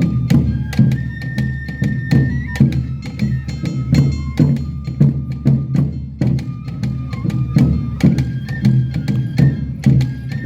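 Awa Odori festival music: a bamboo flute holds long high melody notes over a steady quick beat of taiko drums and sharp metallic strikes of the kane hand gong.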